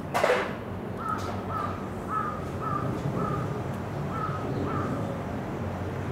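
A bird calling: one loud, harsh call right at the start, then a run of about eight shorter calls, roughly two a second.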